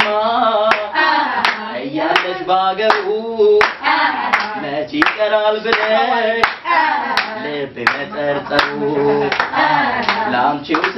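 A group of men and women singing together while clapping their hands in time, the claps falling on a steady beat of about one and a half a second.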